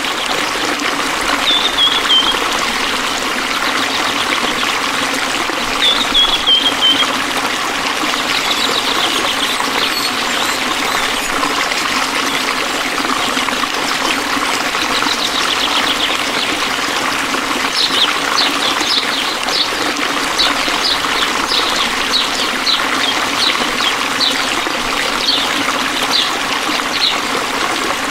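A stream trickling and flowing steadily. Over it come a short falling high chirp, twice in the first seven seconds, then a run of short high chirps at about one and a half a second through the second half.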